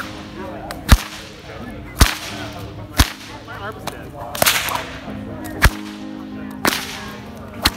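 A whip being cracked over and over, a sharp crack about once a second, with a couple of softer swishing strokes between.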